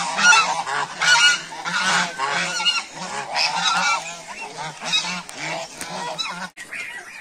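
A flock of domestic geese, white Chinese geese and brown African geese, honking over one another in many quick, overlapping calls. The honking drops away near the end.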